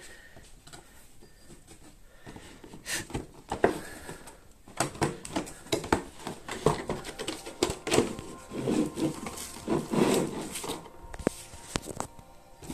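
Headphone packaging being opened and handled by hand: rustling and crinkling with scattered sharp clicks and knocks, busier from about three seconds in.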